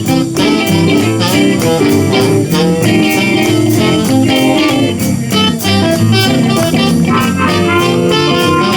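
Live blues band playing an up-tempo instrumental break: electric guitar, bass and drums with a steady beat.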